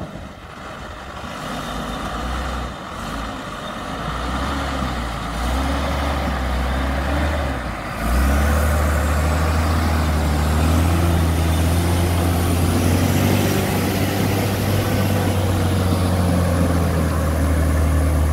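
Diesel engine of a Tata truck running as the truck crawls through muddy water, growing louder as it nears, then a loud steady low drone from about eight seconds in as it passes close by.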